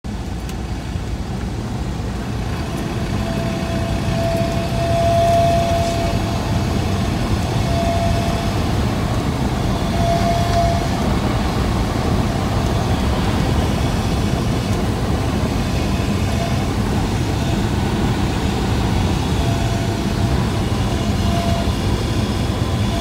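Inside a Cessna 172's cabin on short final in a slip: the engine and propeller drone steadily under rushing air. A howling whistle from wind through the cabin vents comes and goes over it. It is not the stall horn.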